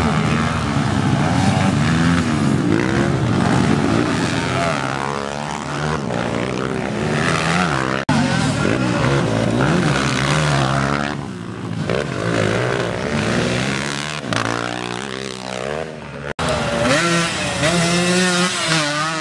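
Motocross dirt-bike engines revving up and down as the bikes race through dirt-track corners, broken twice by abrupt cuts.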